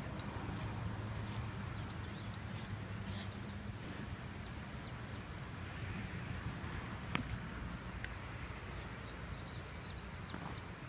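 West Highland white terrier digging and sniffing with its head down a gopher hole in lawn soil, a steady noise, with one sharp click about seven seconds in.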